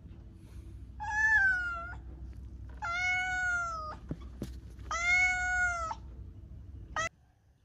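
A cat meowing repeatedly: three drawn-out meows of about a second each and a short fourth one cut off near the end, over a low steady hum that stops abruptly at the same moment.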